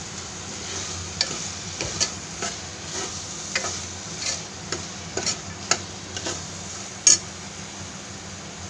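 A metal spoon stirring spiced sprouts in a metal pressure cooker over a steady low sizzle, scraping and knocking against the pot about every half second. There is a sharper clack about seven seconds in, then only the sizzle.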